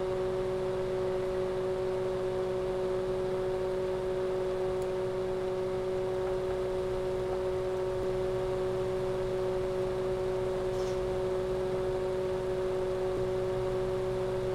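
Steady hiss and hum of a radio receiver picking up no signal: an even static hiss with a few fixed droning tones, unchanging throughout.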